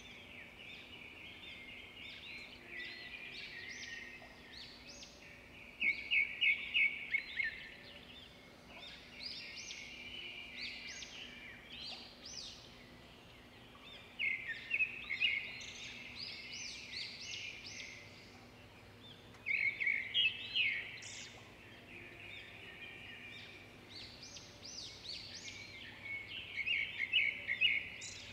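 Birds chirping and chattering steadily, with louder bursts of quick repeated chirps about every five to eight seconds, over a faint steady hum.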